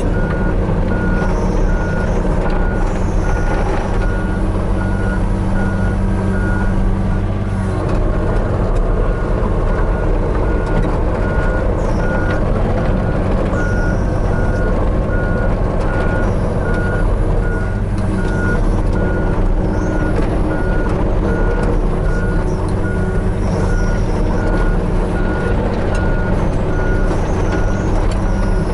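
Hitachi 35U mini excavator's diesel engine running steadily while the machine works, with its travel alarm beeping in an even, repeating pattern.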